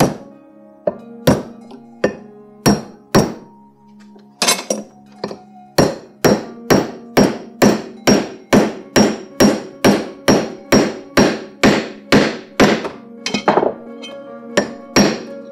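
Hammer striking a steel step wedge, driving it into the end grain of a new axe handle in the eye of a double-bit axe head to lock the head tight. A few spaced taps come first, then a steady run of sharp, clinking blows at about two to three a second until near the end.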